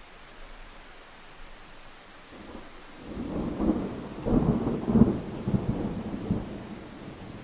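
Thunder rumbling over a steady hiss. The rumble builds from about two and a half seconds in, peaks with a couple of sharper cracks near the middle, then fades toward the end.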